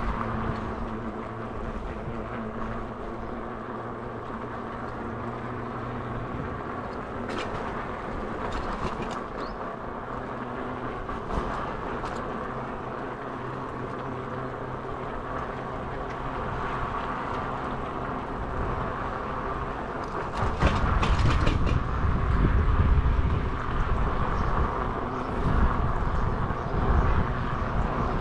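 A motor vehicle's engine running steadily while moving, its hum shifting in pitch now and then, with a few clicks. About two-thirds of the way through, a louder low rumble of wind on the microphone comes in.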